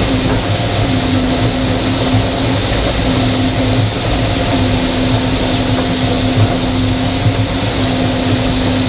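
Gleaner combine harvester running and shelling corn, heard from inside the cab: a loud, steady machine drone with a constant low rumble and a steady hum.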